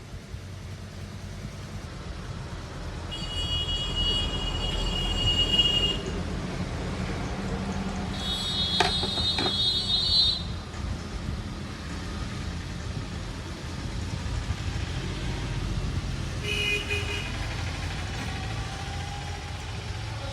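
Repaired pedestal stand fan spinning up and running with a steady low hum and no rattle, after its bearing and wiring were redone. Vehicle horns toot three times over it, the longest about a third of the way in and a short one near the end.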